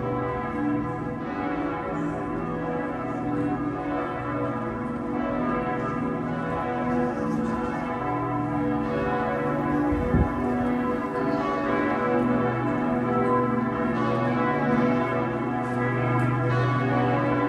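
Church bells pealing, several bells ringing in overlapping strokes whose tones hang and blend together. A short low thump about ten seconds in.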